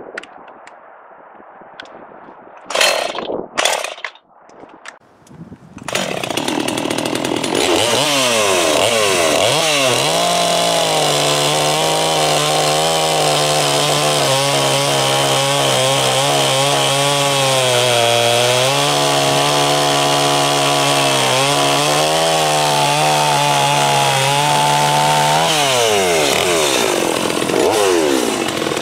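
Two short loud bursts, then a Holzfforma G255 45cc two-stroke chainsaw (an MS250 clone) starts up and revs to full throttle. It holds a steady, slightly labouring pitch for about fifteen seconds as it saws through a hard, dry walnut log. Its revs drop and climb again as the cut finishes; the high-speed mixture has just been tuned.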